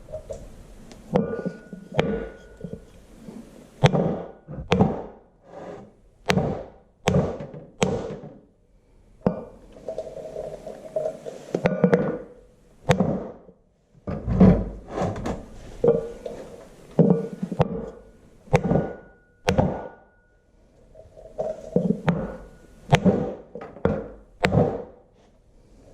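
Repeated taps on a block of wood driving a new seal sleeve down onto a tractor's front wheel hub: a long run of separate, irregularly spaced thunks, some leaving a brief ring.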